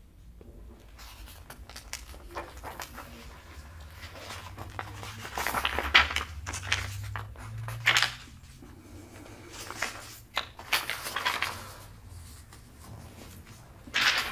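Loose sheets of paper being handled and turned, rustling in several short bursts with pauses between.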